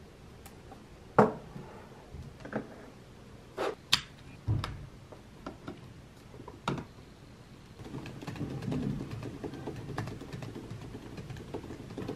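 Scattered clicks and knocks of a MacBook and its desk accessories being handled, including a USB-C multi-adapter being plugged into the laptop's side, then from about eight seconds in a steady patter of typing on its keyboard, muffled by a silicone keyboard skin.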